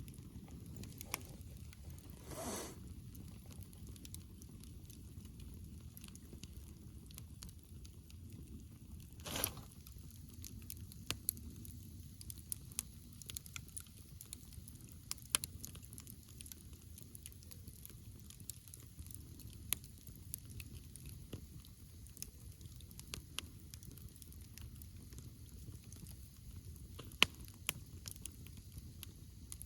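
Wood campfire burning with irregular crackles and sharp pops over a low steady rumble of the flames. Two short, louder rushes of noise come about two and a half and nine and a half seconds in.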